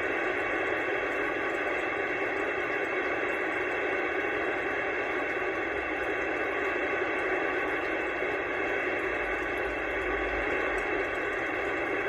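Steady static hiss from an Anytone AT-6666 radio receiver on an open CB channel with no station transmitting.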